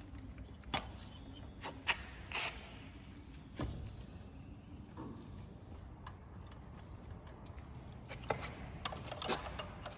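Scattered clicks, taps and light rubbing of hand tools and metal parts being handled during engine-bay work. A few sharp knocks come about one, two and three and a half seconds in, and a quicker run of clicks comes near the end.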